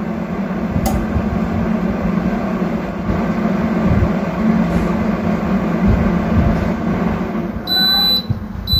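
Heat-lamp countertop oven running, its fan blowing with a steady hum. Near the end the fan dies away and the oven beeps to signal that the cooking cycle has finished.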